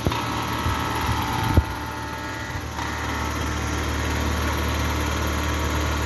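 Carrier Sentry heat pump outdoor unit running with a steady low mechanical hum, with two sharp knocks in the first two seconds. The owner takes the weird noise for a struggling compressor, possibly low on refrigerant.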